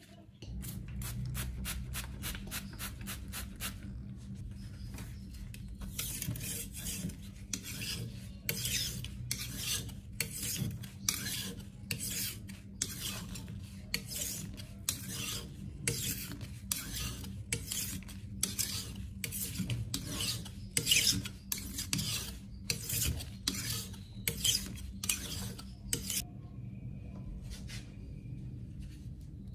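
Steel knife blade sharpened on a rough natural stone: a run of quick short strokes in the first few seconds, then steady back-and-forth scraping strokes about two a second that stop a few seconds before the end.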